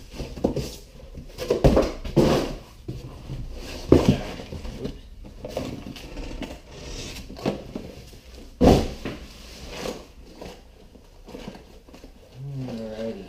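Reloading press parts and packaging being handled on a workbench: irregular knocks and clatters of small metal and plastic parts set down, with rustling between them.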